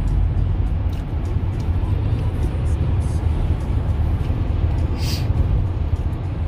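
Steady road and engine noise inside a car's cabin at highway speed, a low rumble with tyre hiss. A brief hiss about five seconds in.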